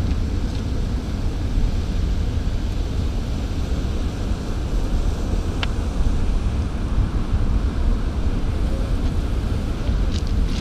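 Wind buffeting the microphone, a steady low rumble, over the rush of water where the river meets the sea. One short sharp click about halfway through.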